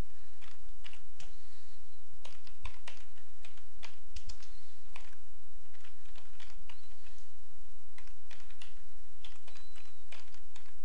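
Computer keyboard keys clicking in short irregular runs as numbers are typed into a calculator program, over a steady low hum.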